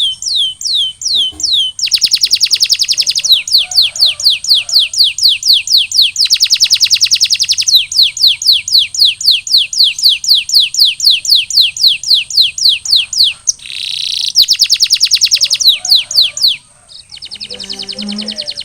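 Male canary singing a continuous song of rapid rolling trills: runs of quickly repeated down-slurred notes that change speed and pitch every second or two, with a short buzzy note about two-thirds of the way through.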